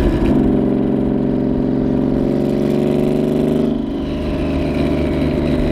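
Turbocharged Subaru EG33 flat-six in a WRX STI accelerating hard, its pitch climbing steadily for about three and a half seconds, heard from inside the cabin. It then lets off, and a high turbo whistle falls away as the engine settles to a lower, steady note.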